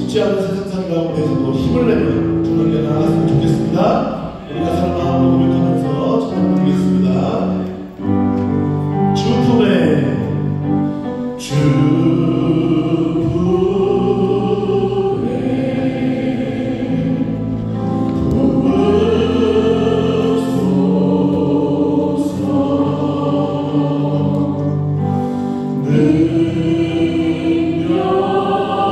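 Worship praise team singing a gospel song together as a group, with keyboard, bass guitar and drum accompaniment.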